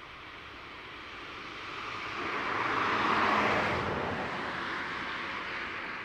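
A vehicle passing by: its road and tyre noise swells to a peak about three seconds in and then fades.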